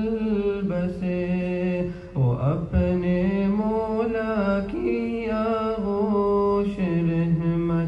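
A nasheed: a man's voice singing long held, ornamented melodic notes, with a brief break about two seconds in.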